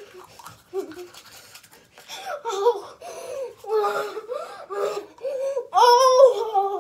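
A young girl laughing and making wordless vocal sounds with a toothbrush in her mouth. The sounds are brief at first, then near-continuous from about two seconds in, and loudest near the end.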